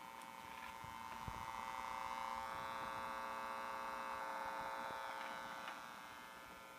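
Steady electrical hum and buzz from a home-built triode valve amplifier, with no music playing through it. It grows louder for a few seconds in the middle as the microphone comes close to the amplifier, then drops back.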